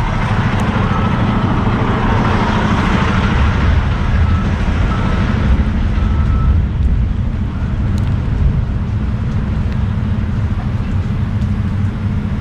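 Semi-truck diesel engine running steadily with a low drone. A hiss swells and fades over the first half, with a few faint short beeps.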